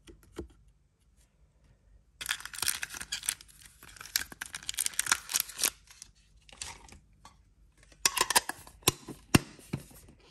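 Foil Pokémon booster pack wrappers crinkling and rustling as they are handled and taken out of a small metal tin, in dense spells from about two seconds in. There are a few sharp clicks near the end.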